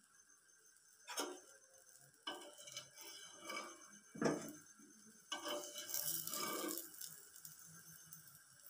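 Metal spatula knocking and scraping against a non-stick frying pan: a few separate knocks in the first four seconds, then a longer scrape lasting about a second and a half.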